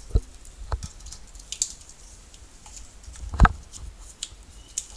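Plastic engine wiring-harness connectors being handled and unplugged: scattered clicks and rattles, the loudest about three and a half seconds in.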